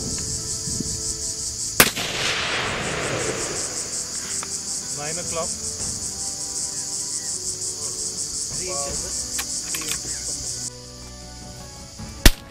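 A rifle shot about two seconds in that echoes away over the next couple of seconds, and a second shot near the end, over a steady pulsing chorus of insects that cuts off suddenly shortly before the second shot.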